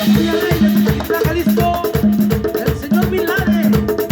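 Live band playing a cumbia with a steady, even beat, bass and percussion under sustained melodic notes.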